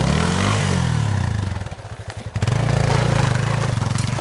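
Yamaha Serow trail bike's single-cylinder engine under way, its revs rising and falling with the throttle; it drops off about two seconds in, then picks up again and holds.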